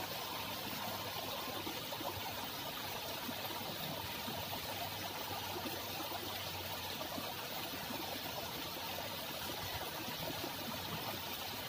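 Steady rush of a small canal's flowing water, even and unbroken.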